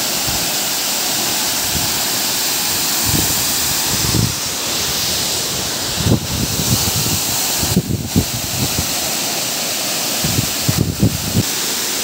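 Tall waterfall pouring into its plunge pool: a steady, loud rush of falling water. Low buffets of wind on the microphone come now and then in the second half.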